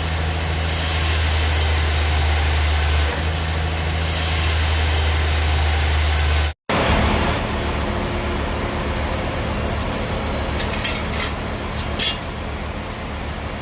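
Sawmill bandsaw machinery running with a steady low drone, with a high hiss in two stretches. The sound breaks off about six and a half seconds in and gives way to a lower steady machine rumble, with a few sharp clicks near the end.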